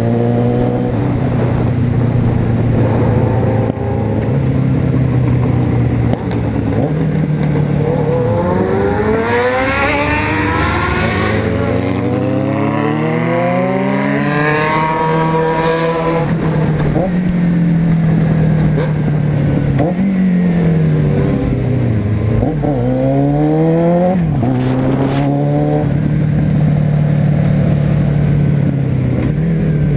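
Motorcycle engine heard from the bike being ridden, revving up through several gears in a row and easing off, then picking up again, over a steady rush of wind and road noise.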